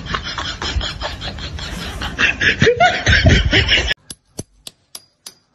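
Laughter for about four seconds, then after a sudden cut a metal spoon tapping a nail held against a wall: sharp, evenly spaced metallic taps about three a second, some with a faint ring.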